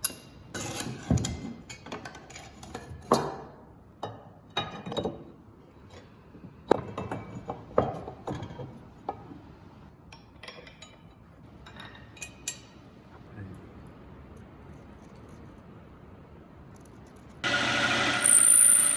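Irregular knocks and clinks of metal parts and hand tools being handled and fitted, some ringing briefly. Near the end a power tool starts and runs steadily with a high whine.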